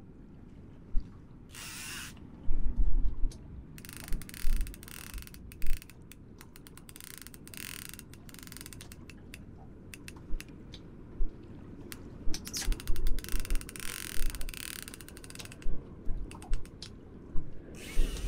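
Fishing reel's ratchet clicking in several bursts of rapid clicks, each lasting one to three seconds, as a hooked fish pulls line off the reel.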